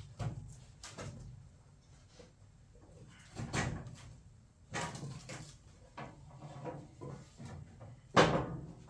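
Scattered knocks and clunks of a generator part being handled and levered by hand to bend it, with a sharp knock about eight seconds in the loudest.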